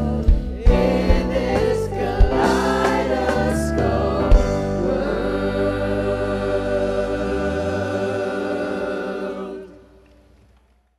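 Live band and a group of young singers ending a song: a few sharp accented hits in the first seconds, then a held final chord that fades out about nine and a half seconds in.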